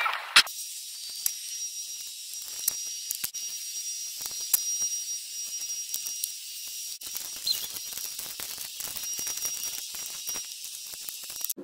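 Small, irregular metallic clicks and taps of a mounting bolt being fitted by hand on an ABS pump and brake control module assembly, with one sharp click about half a second in, over a steady high hiss.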